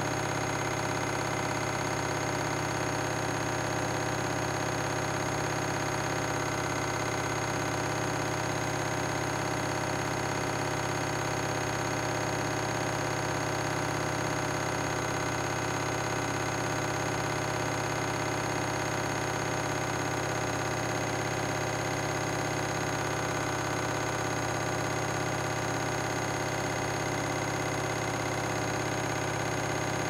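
Front-loading washing machine on a 1200 spin cycle, its drum spinning at a steady high speed with the laundry pinned to the drum wall, giving an unchanging drone with several constant tones.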